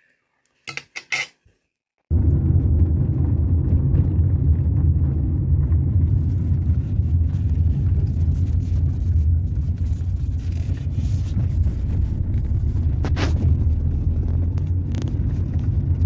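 A few light clinks of a fork on a plate about a second in, then a steady low rumble of a car driving, heard inside the cabin, with one short click partway through.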